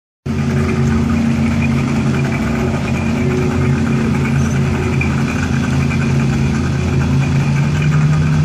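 Ski boat's engine idling steadily while the boat maneuvers slowly in the water, its pitch rising a little near the end.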